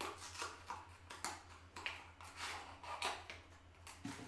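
Hands opening a small cosmetic bottle and its packaging: irregular rustling and light clicks of plastic being handled.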